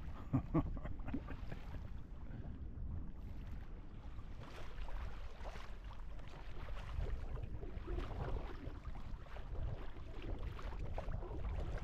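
Water rushing and swishing along the hull of a heeled sailboat under sail, with wind buffeting the microphone as a steady low rumble. A brief, sharper knock stands out about half a second in.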